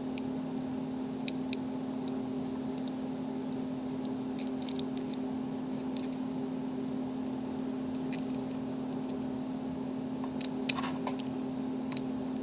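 A steady background hum runs throughout. Over it, a few faint, scattered light metallic clicks come from a lock pick and tension wrench working the pin stack of a Master Lock padlock.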